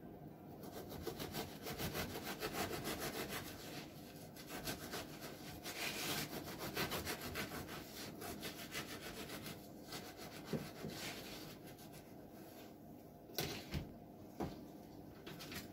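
Serrated bread knife sawing back and forth through a crusty bran chapata loaf, cutting it in half lengthwise, in quick, even rasping strokes. A few light knocks near the end.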